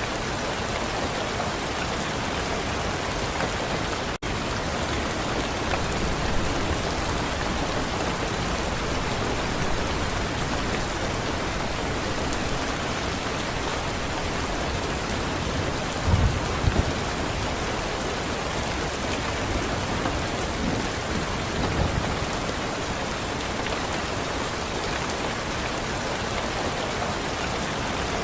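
Steady, heavy rain falling on a surface. Brief low rumbles, which sound like thunder, come about halfway through and again a few seconds later; they are the loudest moments.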